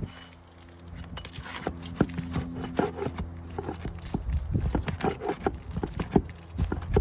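Metal pry tool scraping and tapping under asphalt shingles as nails are worked loose: a fast, irregular run of clicks, knocks and scrapes, growing busier after about two seconds.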